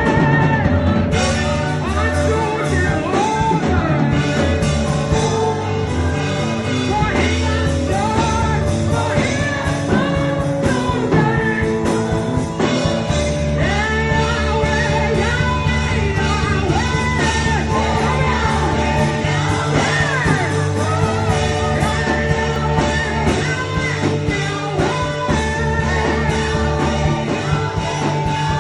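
Gospel worship music: a voice sings with gliding, drawn-out phrases over a band accompaniment of sustained chords and a steady bass.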